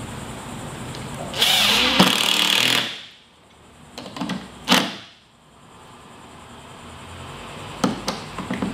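Cordless drill driving a screw to fasten a climbing hold to the wall through a pilot hole. It runs for about a second and a half, then gives a few short bursts, and more short bursts near the end.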